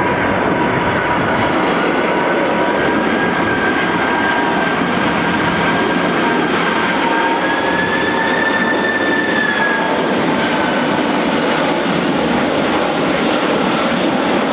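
Jet engines of a large cargo airliner on landing approach, running loud and steady with a high fan whine that rises slightly around the middle and eases back.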